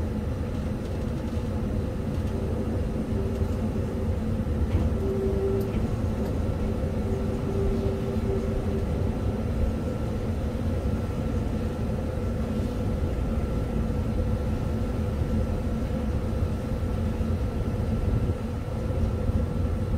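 Cab interior of an EF63 electric locomotive rolling slowly downhill: a steady low rumble with a constant hum from the onboard equipment, and a faint wavering tone for a few seconds early in the run.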